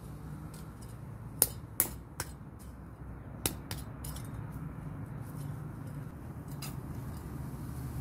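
Scattered sharp clicks and taps, about six, the loudest two about a second and a half and two seconds in, over a low steady hum.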